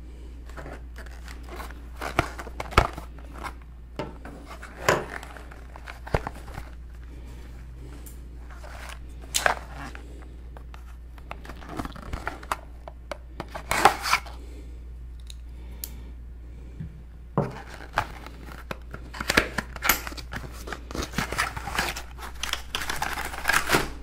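A small cardboard accessory box being opened and its plastic bags of parts handled: irregular rustling, crinkling and sharp handling clicks, busier in the last few seconds, over a low steady hum.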